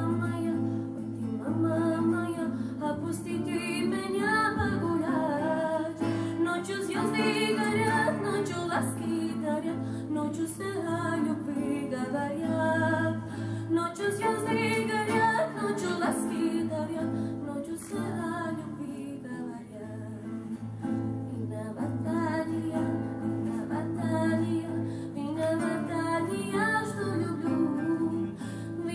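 A girl singing into a microphone to a strummed acoustic guitar.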